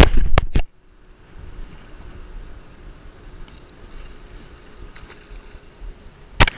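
Loud rough rustling with two sharp knocks at the start, which stops abruptly; then a low steady background of wind and lapping water on a gravel shore, and a single sharp click near the end.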